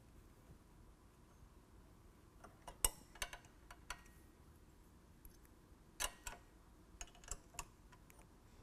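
Scattered light metallic clicks and ticks of a 4 mm Allen key and a 10 mm wrench as a bolt and nut are tightened on a metal top bracket: a few around three seconds in and a quick run of them around six to seven seconds in.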